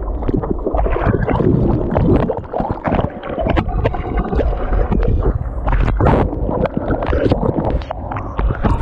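Water splashing and churning right against the microphone, loud and irregular, with a heavy low rumble.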